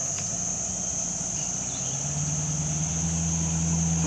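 Land Rover Discovery's engine running at low revs as the 4x4 crawls forward, its note stepping up a little about two seconds in. A steady high insect drone sits over it.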